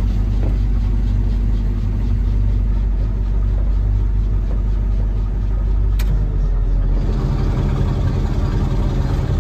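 A 1986 GMC one-ton truck's engine running steadily at low speed, heard from inside its cab. A single sharp click comes about six seconds in, and the engine note shifts slightly soon after.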